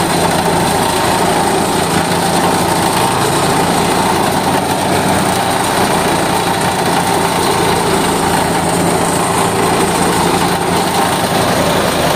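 Mini rice thresher running steadily, its small engine driving the threshing drum and double blower while rice straw and chaff are blown out of the outlet. An even, unbroken machine sound with no let-up.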